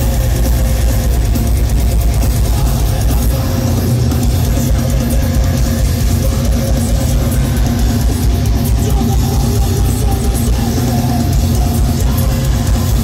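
A deathcore band playing live through a PA, heard from in the crowd: loud, dense heavy metal with distorted guitars and drum kit, steady throughout.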